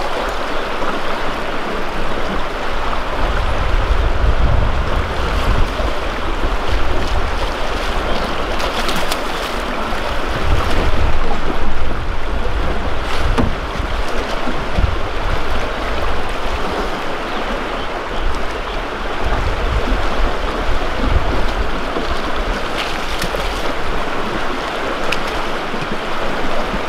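Fast river current rushing steadily past a boat, with wind buffeting the microphone in uneven low gusts.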